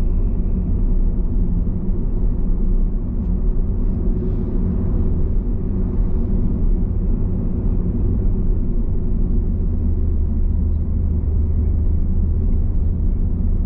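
Car driving at speed, a steady low rumble of road and engine noise with no change in pace.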